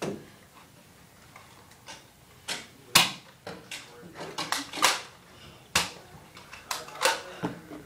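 An irregular series of sharp knocks and clacks, about eight of them, the loudest about three seconds in.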